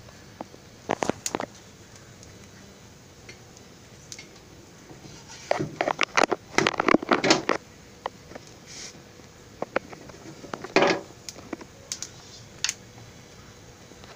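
Thin, lightly cooked maida samosa sheets being peeled apart by hand on a dosa tawa: brief scrapes, taps and crackles, a few about a second in, a busier stretch in the middle and a couple more later.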